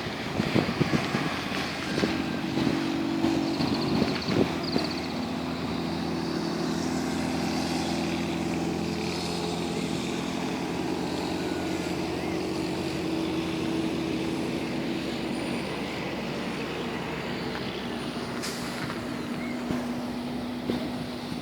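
A large vehicle's engine running steadily at a constant pitch in city street noise, with a few knocks near the start.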